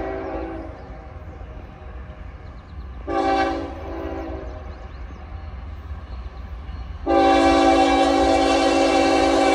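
Locomotive multi-chime air horn: one blast ends just after the start, a short blast comes about three seconds in, and a long loud blast begins about seven seconds in and holds. The pattern fits the closing short-then-long of a grade-crossing warning. A steady low rumble of the approaching train runs underneath.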